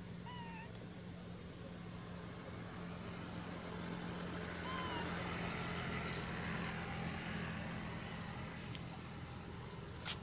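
A steady low hum with two short chirps, one near the start and one about five seconds in, and a sharp click near the end.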